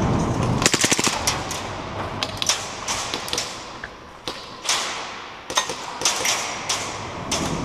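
Airsoft gunfire: a quick burst of rapid clicking shots about a second in, then scattered single shots and sharp knocks, each with a short ringing tail.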